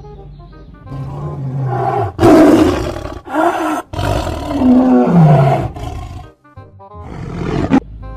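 A big cat, presented as a leopard, roaring and growling in about five rough calls in a row, with a brief break about six and a half seconds in, over light background music.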